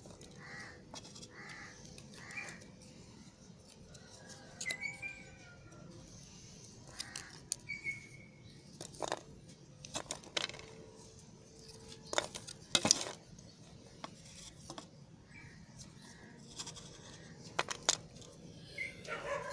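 A bar of soap being cut, with scattered sharp clicks and crackles at irregular intervals, the loudest about nine, ten and thirteen seconds in. Birds chirp briefly in the background.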